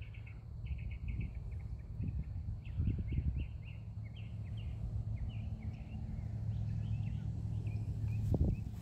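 Outdoor ambience: rapid, repeated short chirping trills over a steady low rumble, with a few soft thumps; the strongest thump comes near the end.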